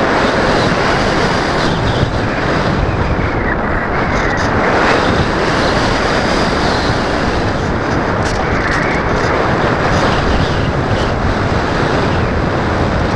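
Loud, steady rush of airflow buffeting the onboard camera's microphone on a Multiplex EasyGlider Pro RC glider in flight, with no motor tone standing out.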